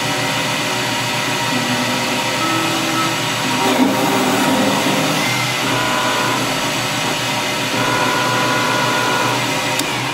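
Metal lathe running under power, spindle turning, during an internal threading pass driven by stepper motors on the electronic leadscrew. A steady machine hum, with whining tones that come and go a few times as the tool is moved.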